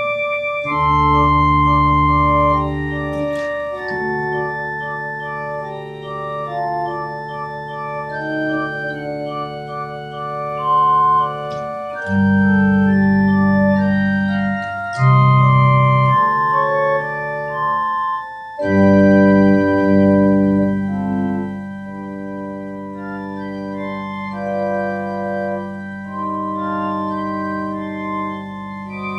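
Organ music: slow held chords with a sustained bass and a melody line above, the notes changing every second or two.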